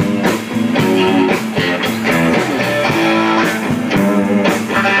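Blues band playing an instrumental phrase between sung lines, with guitar to the fore and drums keeping a steady beat.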